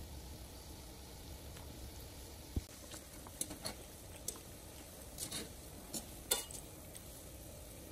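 Dumplings being stirred in a steel pan of boiling water with a wire spider skimmer: a steady bubbling haze, and from a few seconds in a run of light clinks and scrapes of the skimmer against the pan.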